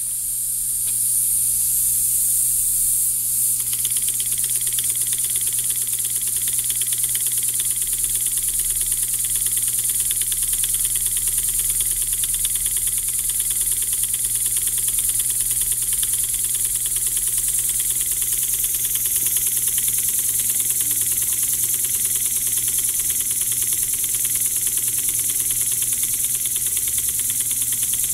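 Miniature model steam engine running fast: a steady hiss of exhaust with rapid, even strokes. It picks up about a second in and its tone brightens a few seconds in.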